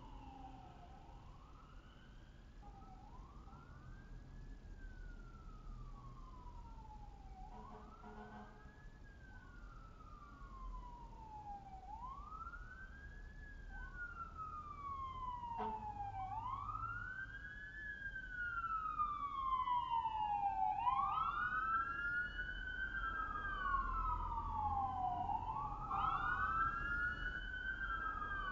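Emergency-vehicle siren wailing, each sweep rising quickly and falling slowly, about every four seconds, growing steadily louder as it approaches. Near the end a second siren sweeps slightly out of step with the first.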